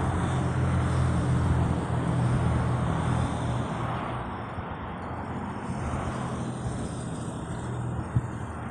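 A road vehicle's engine running with a steady low hum and road noise. It is loudest over the first few seconds, then slowly fades.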